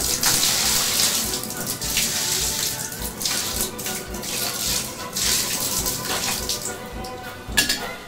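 A stream of coffee pouring and splashing onto a plastic typewriter-style Bluetooth keyboard and the floor of a bathtub, varying in strength, with a sharper splash near the end.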